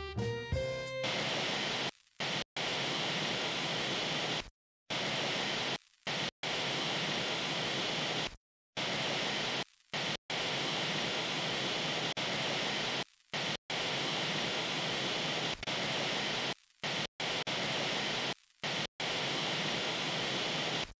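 The last notes of a music track end about a second in. Then television static hiss from a no-signal screen effect runs steadily, cutting out abruptly to brief silence many times.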